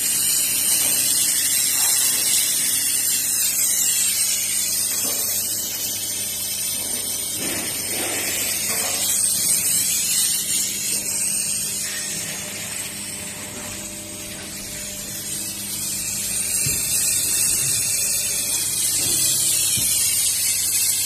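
Laser welding machine running: a steady high-pitched hiss that dips somewhat midway and then builds again.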